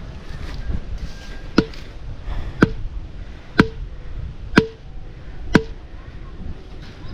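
Hammering on a trellis stake, driving it into the ground: five sharp strikes about a second apart, each with a short ring.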